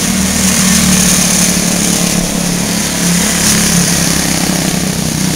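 Quarter midget race cars' small single-cylinder engines running steadily at speed as the cars lap the track, a continuous drone with no breaks.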